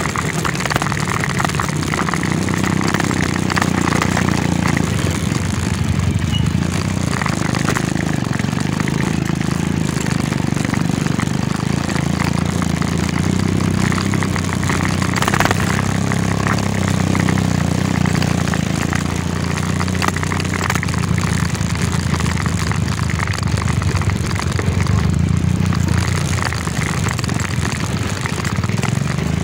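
Motorcycle engine running under way on a dirt trail, a steady low drone that rises and falls a little with the throttle, with a rushing noise over it.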